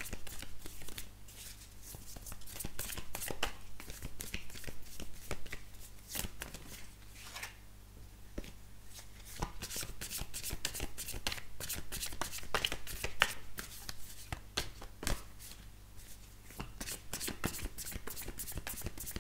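A deck of oracle cards being shuffled by hand: a long run of quick card flicks and slaps, easing off twice for a second or so, over a low steady hum.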